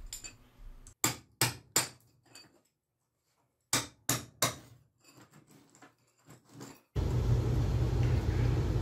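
Hammer striking a steel chisel into a concrete floor slab: sharp metallic clinks in two quick groups of three with a few fainter taps, chipping through the concrete. About seven seconds in they stop and a steady low hum and hiss takes over.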